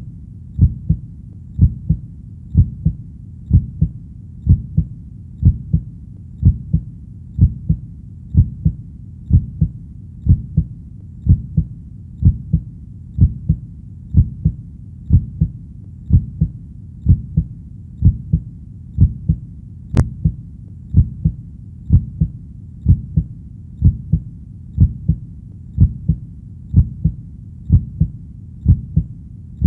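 Steady, regular heartbeat, each beat a low double thump (lub-dub), a little over one beat a second.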